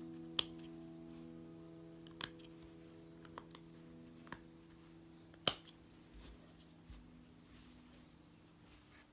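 Scissors snipping, about six sharp, separate cuts, the loudest about five and a half seconds in, over a held piano chord that dies away.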